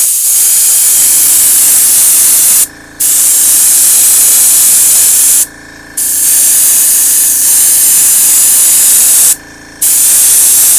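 Airbrush spraying paint, a loud steady hiss of air and paint in long bursts, cut off briefly three times as the trigger is let go. A small airbrush compressor hums steadily underneath, heard plainly in the pauses.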